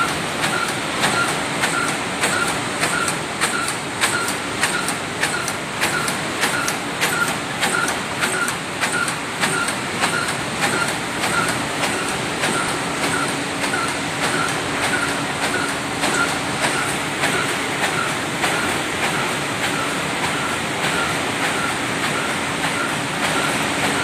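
Hamburger box erecting machine running: a steady mechanical clatter with a regular clack about twice a second as it cycles through the carton blanks. A faint low hum joins about halfway.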